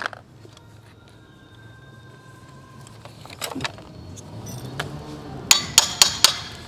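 Hands taking apart a small Kavi grass-trimmer engine: scattered clicks and clinks of plastic casing, metal parts and screws, with a cluster of sharper clicks near the end.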